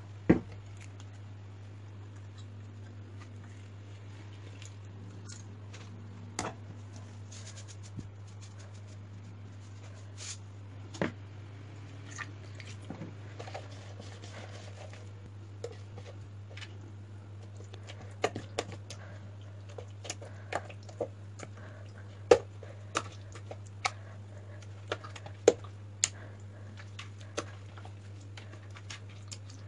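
A hand mixing a wet spice paste and rubbing it into raw fish slices in a plastic bowl: scattered short squelches and taps, sparse at first and coming more often in the second half, over a steady low hum.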